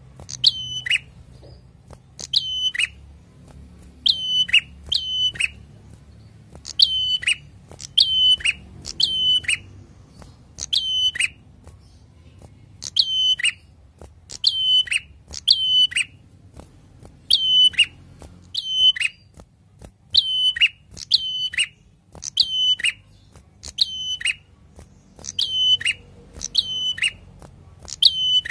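Caged ashy tailorbird singing a short, loud call over and over, about one every one to two seconds and often in pairs. Each call is a quick run of high notes that drops away at the end.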